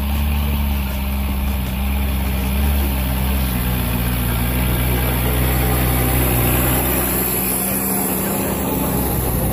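Homemade tractor's 1.9 TDI four-cylinder turbodiesel engine, taken from a VW Golf 3, running steadily under load as it pulls a three-furrow plough through the soil, coming up and passing close by near the end.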